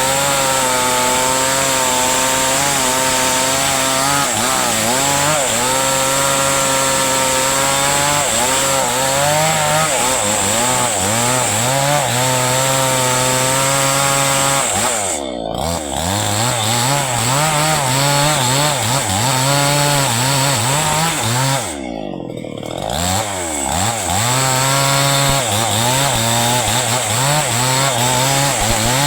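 Chainsaw cutting into a hardwood trunk, its engine pitch wavering as it bogs and recovers under load. About 15 s and again about 22 s in, it briefly drops back and then revs up again.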